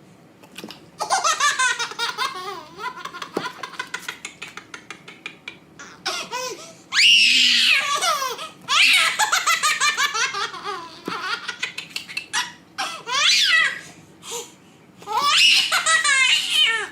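A baby's belly laugh in repeated peals: rapid, choppy bursts of laughter from about a second in, rising into high-pitched squeals around the middle and again near the end.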